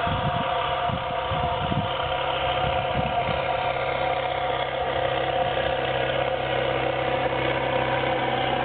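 Vehicle engine running steadily at an even pitch during snow clearing, with some low thumps in the first three seconds.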